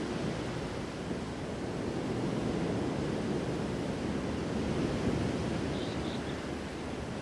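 Steady rushing wash of ocean surf, rising and falling slowly, with wind on the microphone.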